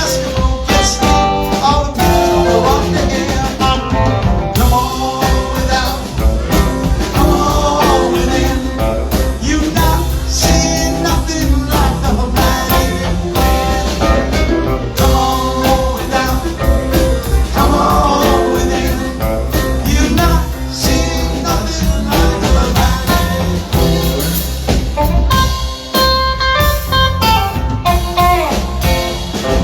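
Live band playing blues-rock music, with guitar, drum kit and singing.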